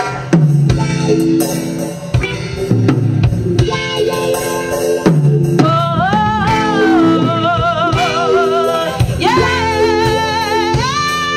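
A live reggae band plays with drum kit, bass and guitar. Several singers come in together in harmony about halfway through, then pause and come in again near the end.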